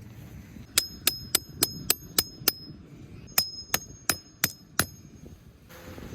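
Hammer striking a metal tent peg: two runs of ringing metallic strikes, seven quick blows and then, after a short pause, five more.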